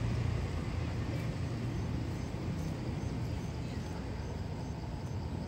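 Low rumble of a passing motor vehicle, slowly fading away. Faint high chirps repeat about three times a second over it from about two seconds in.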